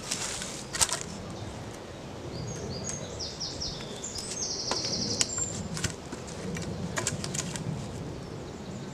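Dead-wood poles knocking and rubbing against each other as two pieces are worked together by hand, with a few sharp wooden knocks, the loudest about a second in and about five seconds in. A bird calls in the background, a run of short high notes and a brief buzzy trill about three to four seconds in.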